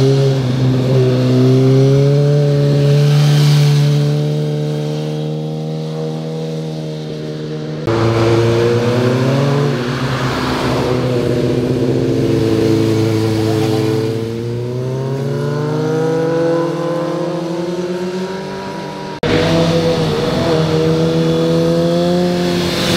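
Sport motorcycle engines running through a hairpin bend, their note dipping and then climbing as the bikes roll back on the throttle out of the corner. In the middle stretch the pitch rises steadily. The sound changes abruptly twice as it jumps from one bike to the next.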